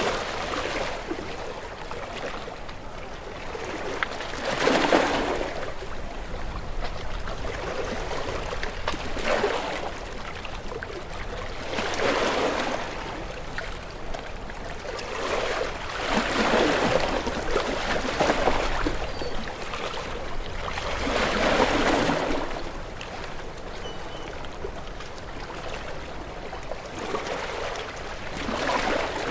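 Waves washing in and drawing back, each surge of water swelling and fading every few seconds.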